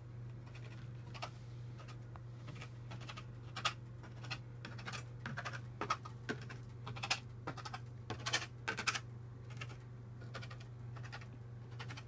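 A two-tined fork pricking pizza dough spread on a baking pan, its tines tapping the pan beneath in irregular sharp clicks.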